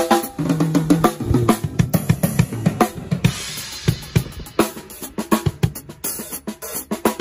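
Acoustic drum kit played live with sticks: fast snare and bass drum strokes, a run of tom strokes in the first second and a half, and a cymbal ringing out about three seconds in.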